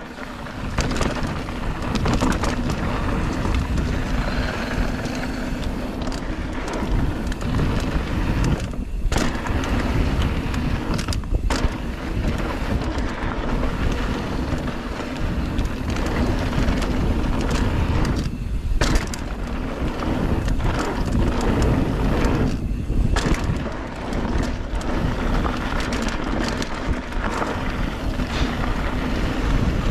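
Polygon Siskiu T7 mountain bike riding a dirt singletrack: steady tyre rumble and rattle over packed dirt, with wind on the microphone and a few brief lulls.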